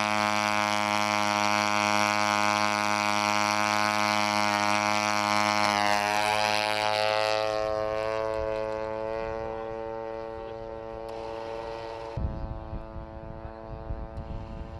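Small propeller engine of a target drone running at full power on its rail launcher, a steady buzzing drone. About six seconds in the drone is launched and the pitch falls as it flies away, fading. Near the end a low rumble of wind on the microphone comes in under the fainter engine.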